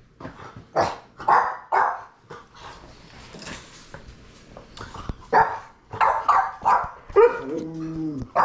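A dog barking in short barks: a few about a second in, then a quicker run of barks in the second half.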